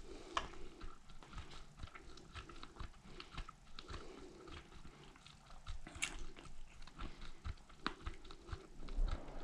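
Irregular light clicks and taps, several a second, from buttons and the selector dial on the Samsung front-load washer's control panel being worked in diagnostic mode to read error codes.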